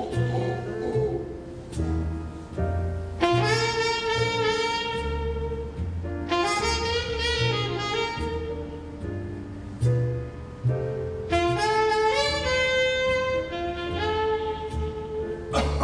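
Jazz music: a saxophone plays long held notes that shift in pitch every second or two, over a line of low bass notes.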